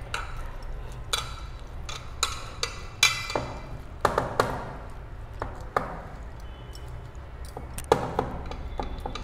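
A hand slapping and pressing a loose wheat-flour dough in a metal bowl: irregular soft pats and knocks, with bangles clinking against the bowl and brief metallic rings several times.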